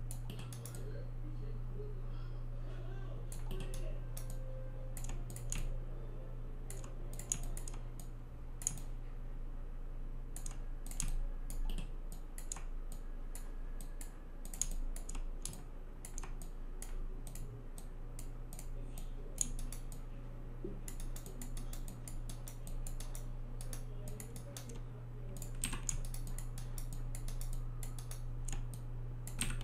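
Computer keyboard keys and mouse buttons clicking irregularly as the software is worked, over a steady low electrical hum.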